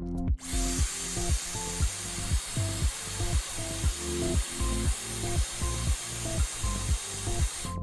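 Hair dryer blowing hot air in a steady hiss, heating the phone's edge to soften the screen adhesive. It starts about half a second in and cuts off suddenly at the end, over background music with a steady beat.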